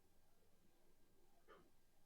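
Near silence: faint room tone with a low hum, and one brief faint sound about one and a half seconds in.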